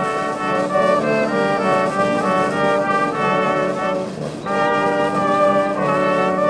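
Brass band music: a melody of changing notes played by a loud brass ensemble, with a brief lull about four seconds in.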